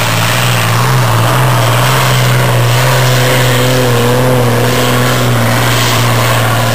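Modified pulling tractor's engine running flat out at steady high revs as it hauls a weight-transfer sled down the pulling track; one loud, unbroken note that holds its pitch.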